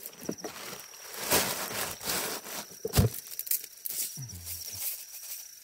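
Camping gear being handled: rustling and knocks, with one loud thump about three seconds in as a plastic cooler box's lid is shut. An insect's thin high call sounds on and off behind it.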